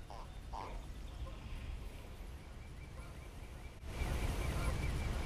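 Channel catfish "talking" while held out of the water: a few short, faint grunts near the start, the sound a channel cat makes by rubbing its pectoral spines. About four seconds in, the recording turns louder.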